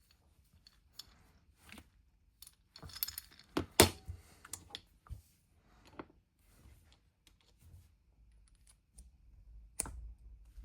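Small metal clicks and clinks from the parts of a watchmaker's tool for screw-on pushers and tubes being handled, scattered and irregular. There is a busier run of clicks about three to four seconds in, with one sharp knock, and another clear click near the end.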